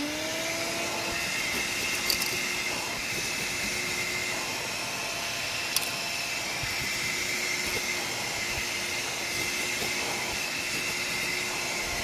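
Small handheld car vacuum cleaner switched on, its motor winding up to speed in the first moment and then running steadily with a whine and rushing air. Its crevice nozzle is working over the car's floor carpet.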